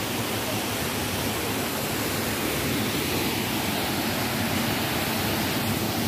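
Steady rush of a stream and its waterfalls, an even hiss of flowing water that holds at the same level throughout.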